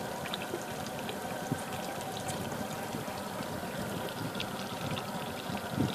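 Steady trickling, pouring water sound at the boat, with no speech over it.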